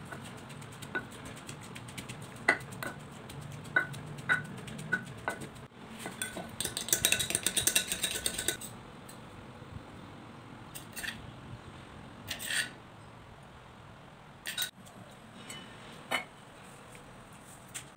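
Wooden pestle knocking in a clay mortar, with scattered knocks and clinks, then about two seconds of rapid scraping and rattling about seven seconds in. After that come occasional clinks of kitchenware.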